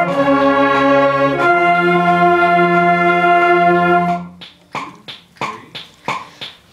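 School concert band of woodwinds (flutes, oboes, clarinets, saxophones) holding sustained chords, changing chord about a second and a half in. The band cuts off after about four seconds, then plays a few short detached notes before the next held chord comes in at the very end.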